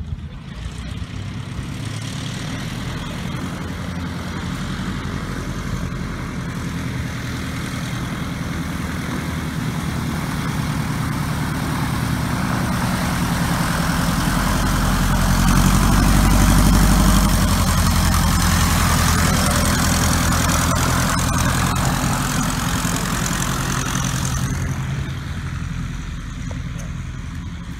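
A yellow Piper Cub light aircraft's engine and propeller running at taxi power. It grows louder as the plane comes close, is loudest a little past the middle, then fades as it moves away.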